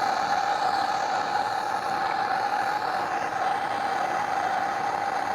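Torch flame burning steadily against a stuck adjustable wrench, heating the seized adjuster: an even hiss with a constant mid-pitched tone running through it.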